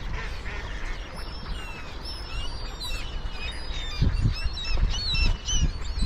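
A flock of mallard ducks and gulls calling, many short high calls overlapping one another; a low rumble joins about four seconds in.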